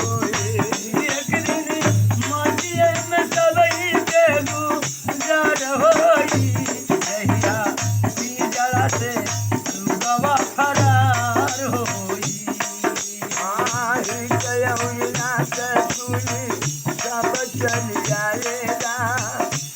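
Nirgun devotional folk music: a wavering melody over regular drum beats, with shaken rattle percussion running through it.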